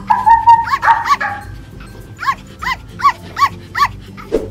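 A dog barking repeatedly: a cluster of barks in the first second, then a quick even run of five barks.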